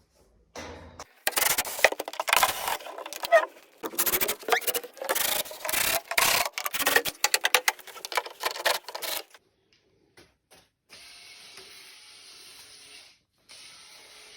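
Wood being worked by hand: a run of rough, irregular scraping strokes for about eight seconds that stop abruptly, followed by a faint steady hiss.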